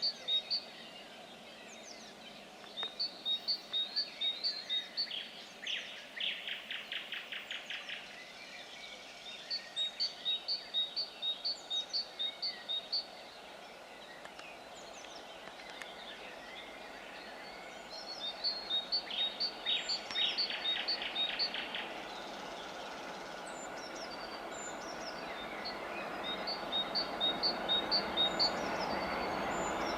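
Birds singing: a songbird repeats a phrase of about eight evenly spaced, high two-pitched notes every few seconds, twice followed by a dry rattling trill. Over the last several seconds a low rumble swells as a DR1A diesel multiple unit approaches.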